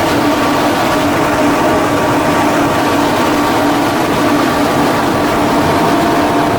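A machine running steadily, with a constant hum of several steady tones over a broad noise.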